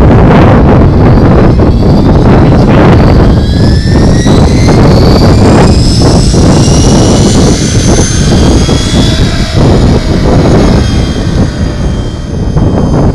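Electric RC helicopter with a Compass C5026 brushless motor spooling up: a whine from the motor and drivetrain climbs steadily in pitch over several seconds, then levels off as the rotor reaches flying speed and the helicopter lifts off. Throughout there is a heavy rushing noise, much of it wind on the microphone.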